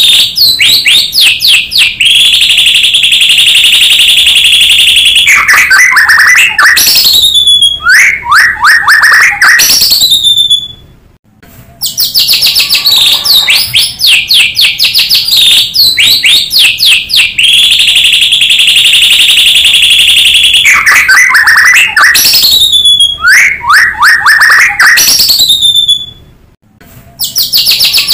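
White-rumped shama (murai batu) singing loudly. Rapid trills, a long buzzy note and falling whistles follow one another, broken by two brief pauses. The same song sequence repeats about every 15 seconds, as a looped lure recording would.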